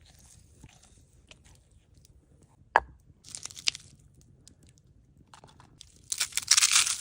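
A sharp click, then short bursts of crunching, the loudest and densest near the end.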